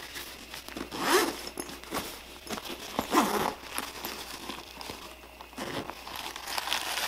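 Zipper on a soft drone carrying case being pulled open, with two loud zip strokes about two seconds apart, then rustling of the case's fabric near the end.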